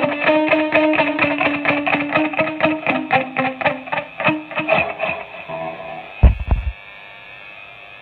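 Distorted electric guitar (Gibson SG through a Marshall DSL40C tube combo) playing a fast, evenly picked riff that slows and thins out about five seconds in. A loud low thump a little after six seconds cuts it off, leaving the amp's faint steady hiss.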